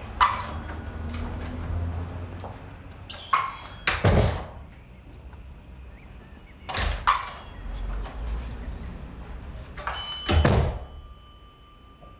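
A series of heavy door thunks and bangs, five or so spread over several seconds, over a low rumble. After the last pair, near the end, a faint high ringing tone lingers.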